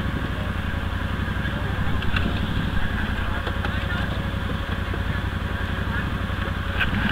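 Arctic Cat Wildcat side-by-side's engine running steadily at low speed, with an even low pulsing, heard from the driver's seat.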